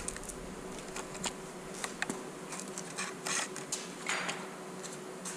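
Light clicks, taps and rustles of a digital angle finder being handled and set against a steel tube on a steel welding table, over a faint steady hum.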